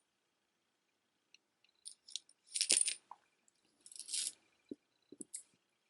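Stone-bead jewelry clicking and clinking as it is handled and set down: scattered light clicks, with two short, louder clattering rattles near the middle.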